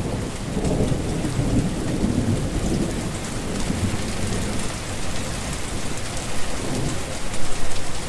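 Steady heavy rain, with a low rumble of thunder swelling and fading over the first few seconds.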